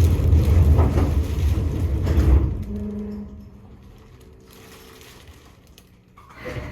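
Seibu 2000 series electric train running, a heavy low rumble that falls away sharply after about two and a half seconds, leaving a quieter stretch with a few faint steady whining tones before the sound swells again near the end.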